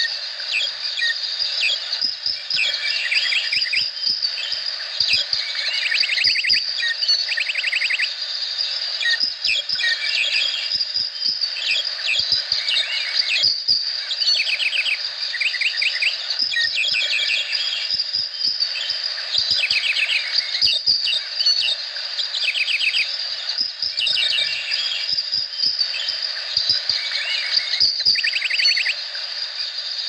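Tropical rainforest chorus: many birds calling, with short rapid trills recurring every few seconds, over a steady high-pitched insect drone.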